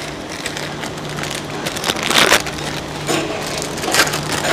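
Rustling, crinkling and light clattering as packaged parts are rummaged through on a workbench, loudest about two seconds in, over a steady low hum.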